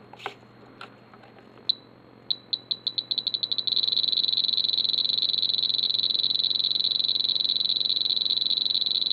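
Spektrum DX7 transmitter's beeper: a single high beep, then beeps repeating faster and faster until they run together into one continuous tone, as the travel-adjust values are scrolled up.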